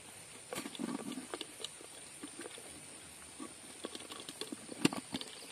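Hands handling a small red container, making scattered small clicks and knocks, with one sharper knock about five seconds in. A faint steady high tone runs underneath.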